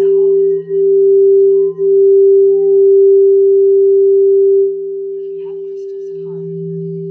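Singing bowls rimmed with a mallet: a steady, pure ringing tone over a lower hum, held without dying away. The higher tone softens a little past halfway, and the lower hum swells near the end.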